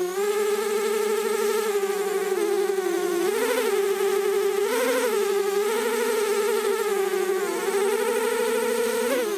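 Mini quadcopter's electric motors and propellers whining steadily from on board. The pitch rises briefly twice, a little over three and around five seconds in, and dips near the start and near the end as the throttle changes.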